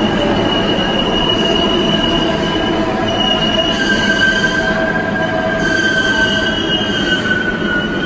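New York City Subway R188 train pulling into the station, its steel wheels squealing in several long, steady high tones over the rumble of the cars.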